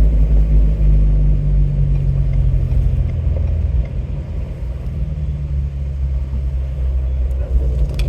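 Off-road vehicle's engine running at low, steady revs, heard from inside the cab as a deep rumble that eases off a little about four seconds in.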